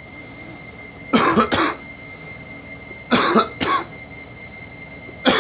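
A person coughing in double coughs: two pairs of coughs about two seconds apart, and another pair starting at the very end. It is a cold's cough, in someone nursing broken ribs.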